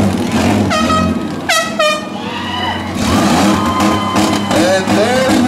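Air horn blasting: two short honks about a second in, then a longer held note, over the low rumble of demolition-derby truck engines.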